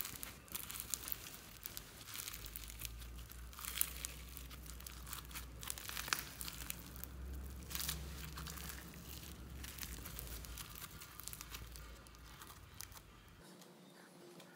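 Floam slime packed with small foam beads being squeezed and stretched by hand, giving a dense crunchy crackling of many small clicks and pops. The crackling dies away near the end as the slime is set down.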